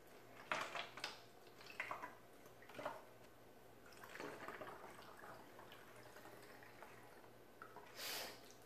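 Water poured from a jug through a plastic funnel into a plastic spray bottle: faint trickling and dripping with a few small splashes. There is a brief louder rush of water about eight seconds in.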